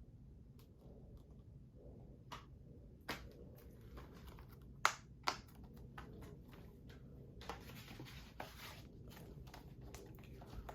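Handling of a plastic 4K Blu-ray case: scattered clicks and taps, the loudest two sharp clicks about five seconds in, and a brief rustling slide a few seconds later.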